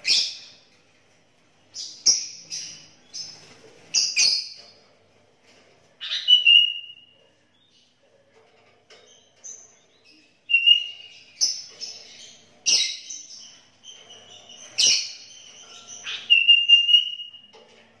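Caged sooty-headed bulbul singing in short, bright bursts of chattering whistled notes separated by pauses, two of the phrases ending in a longer held whistle.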